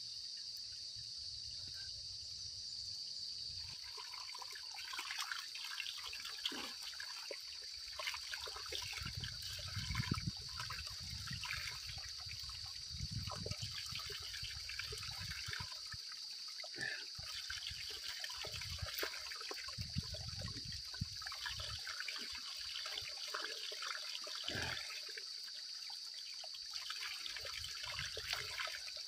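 Spring water trickling out between rocks, with splashing as it is scooped up in cupped hands and drunk, beginning about four seconds in. A steady high insect buzz runs underneath.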